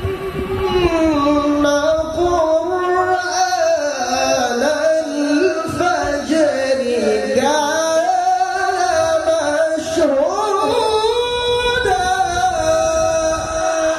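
A male qari reciting the Qur'an in melodic tilawah style into a microphone, singing long held notes in one sustained phrase, the pitch gliding and wavering through ornamented runs.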